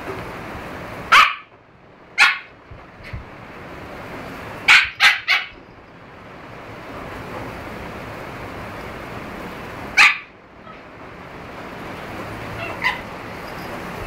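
Siberian husky puppies play-fighting and giving short, sharp barks: one about a second in, another a second later, a quick run of three near the middle, one more a little later and a fainter one near the end, over a steady background hiss.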